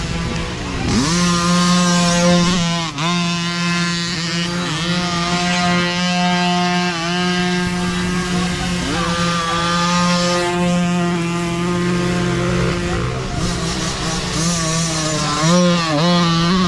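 Several small micro dirt bikes buzzing at high pitch, their throttles repeatedly rising and falling as they climb. One bike comes close and revs near the end.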